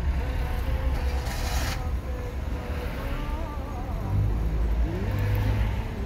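Car driving in town traffic: steady low engine and road rumble, with a brief hiss a little over a second in.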